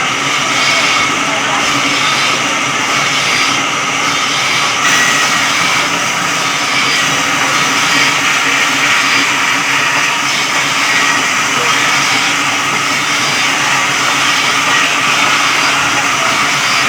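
Electric sawmill saw running steadily as it cuts through a log.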